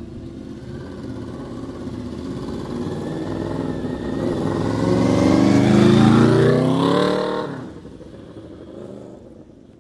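Honda CBR750F motorcycle engine accelerating hard, its note climbing in pitch and getting louder over several seconds. It drops off sharply about three-quarters of the way through and runs on much quieter after that.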